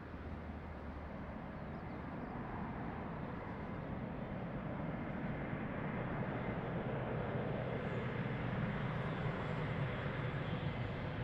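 Airbus A400M Atlas's four turboprop engines on approach, a steady drone growing gradually louder as the aircraft comes nearer.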